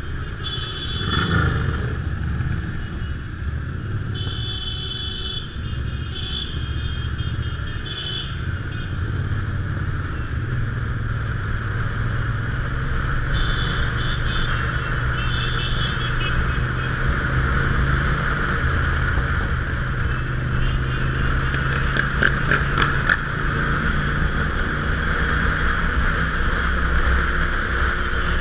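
Motorcycle engine running steadily at low riding speed, heard from the bike itself, amid the engines of other motorcycles riding alongside. A brief rise in engine pitch about a second in.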